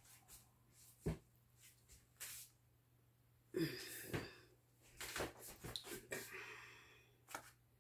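Faint scattered clicks and light knocks of a nylon spatula and a plate being handled around a nonstick frying pan, with a sharp click about a second in and a busier patch in the middle, over a faint steady low hum.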